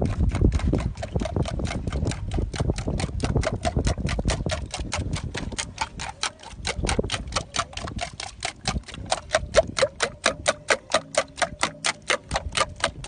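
Rapid, steady clock-like ticking, about four to five ticks a second, over a low rumble.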